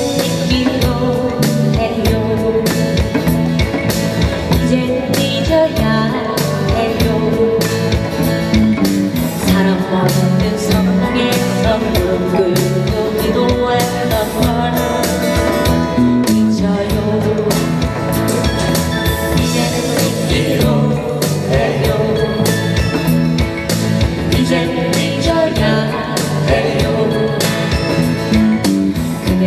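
Amplified live band music: strummed acoustic guitars, electric guitar and a hand drum keeping a steady beat, with singing over the top.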